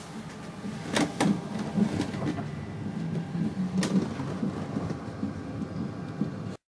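Cabin noise of an automated electric pod car running along its concrete guideway: a steady low rolling rumble, with a few sharp knocks or clicks about a second in and again near four seconds in. The sound cuts off abruptly just before the end.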